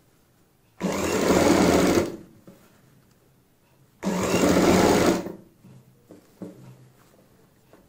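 Sewing machine stitching in two short runs of about a second each, with pauses between, as it sews beaded lace trim onto a fabric neckline.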